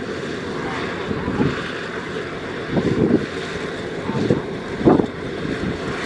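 Rice combine harvester running steadily as it cuts the crop, a constant machine hum. Wind buffets the microphone in several louder gusts.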